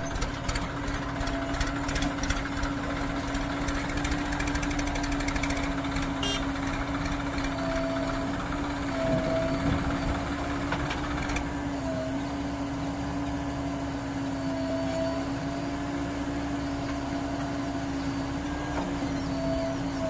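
Heavy diesel engine running steadily with a constant low hum, with short higher tones coming and going above it.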